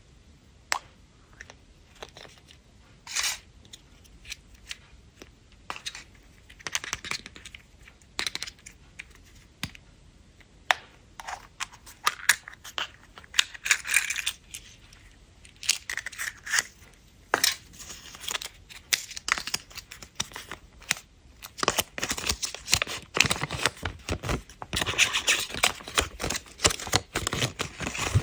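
Sweet and chocolate wrappers being opened by hand: wrapper material crinkling and tearing, with scattered sharp clicks and taps, getting busier and more continuous over the last several seconds.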